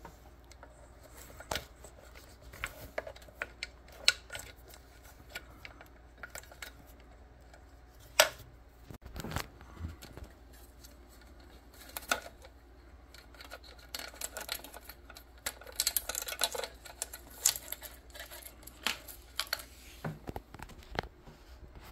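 Irregular clicks, taps and rustles of electrical cables and a screwdriver against an e-bike's frame as the wiring is fished through the frame. Two sharper knocks stand out, a little after 4 seconds and near 8 seconds, and the clicking and rustling grows busier about two thirds of the way through.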